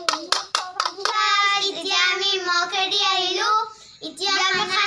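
Children clapping in a quick, even rhythm, about five claps a second, while singing. About a second in the clapping stops and they go on singing together, with a brief break shortly before the end.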